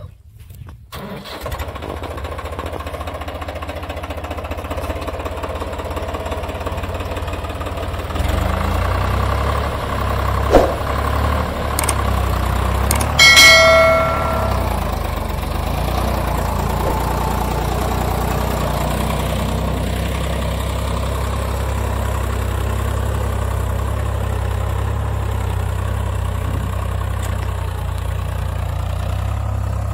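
Swaraj 855 FE tractor's three-cylinder diesel engine running steadily, building up in the first couple of seconds and a little louder from about eight seconds in. A short high ringing tone sounds once about thirteen seconds in.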